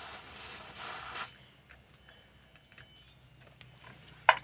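Compressed air hissing through an air-hose chuck pressed onto a motorcycle tyre valve while inflating the tyre, cutting off about a second in. Faint clicks follow, then one sharp click near the end.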